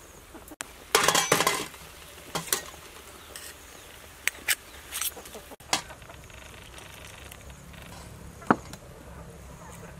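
Metal spoon clinking and scraping against a small tin and a steel ladle over a stainless-steel pot. The clinks come in a series, with the loudest cluster about a second in and a single ringing clink near the end.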